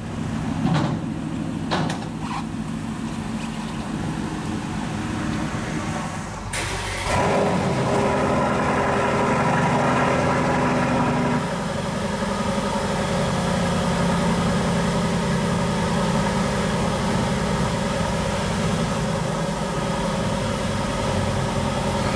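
An engine running steadily, then, after a sudden change about seven seconds in, the 2019 Aston Martin Vantage's twin-turbo V8 idling steadily inside a steel shipping container, just after a cold start. The idle note shifts slightly about eleven seconds in.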